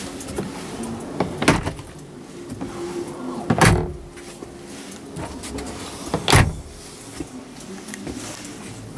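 Plastic storage-compartment lids in a truck's sleeper cab being opened and shut: three loud clunks a little over two seconds apart, with smaller clicks and rattles between, over a faint steady background.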